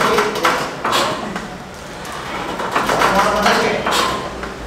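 Indistinct human voice sounds: short breathy bursts and low murmured speech.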